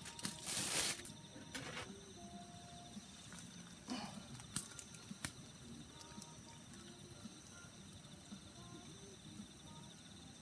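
Outdoor ambience with a steady, pulsing chirring of insects. Over it come a brief rustle about half a second in and a few sharp clicks a little before the middle.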